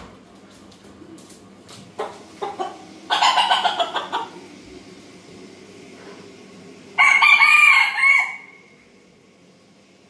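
Rooster clucking a few times, then crowing: a loud call about three seconds in and a longer, louder crow about seven seconds in.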